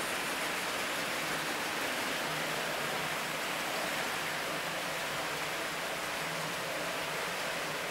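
Model train running past on its track: a steady, even rushing noise of the wheels rolling on the rails, with a faint low motor hum.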